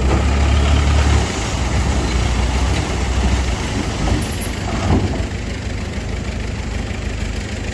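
Heavy diesel engine of earthmoving machinery running with a deep low rumble. It is loudest for the first second or so, drops back after about three and a half seconds and settles to a steadier run, with a few light knocks near the middle.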